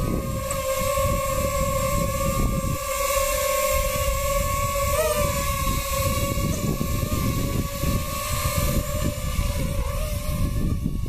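DJI FPV quadcopter's propellers giving a steady high whine as it hovers, the pitch dipping briefly about five seconds in as it swings past close by.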